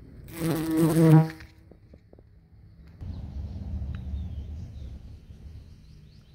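A bee buzzing loudly at close range inside a squash flower, a steady pitched buzz lasting about a second. Later a low rumble follows, with faint high chirps.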